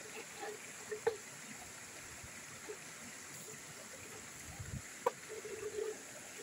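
Faint steady rush of river water, with a few soft short taps and blips, one about a second in and another about five seconds in.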